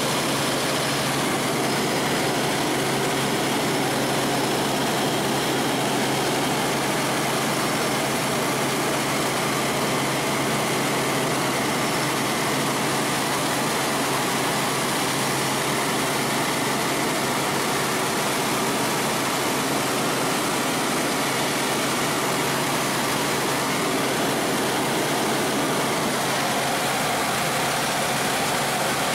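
Helicopter in steady flight, heard from inside the cabin: an unchanging rush of rotor and engine noise with a steady low hum beneath it.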